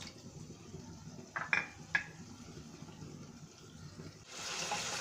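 Spice paste with a splash of water frying in a pot: a few short metallic clinks about a second and a half in, then a steady sizzle that starts abruptly near the end.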